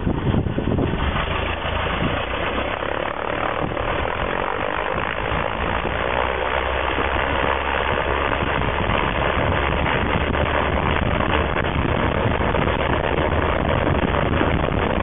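Floatplane's propeller engine running steadily.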